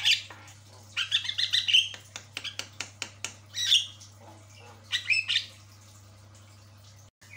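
Javan myna (jalak kebo) calling in short bouts of harsh, chattering calls, with a quick run of sharp clicks in the middle; the calls die away in the last couple of seconds. A low steady hum lies underneath.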